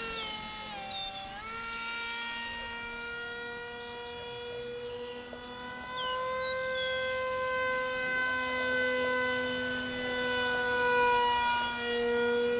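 Electric motor and propeller of a foam RC plane running on a 3S battery setup, a steady whine from the plane in flight. The pitch dips and recovers about a second in, then the whine grows louder from about six seconds in.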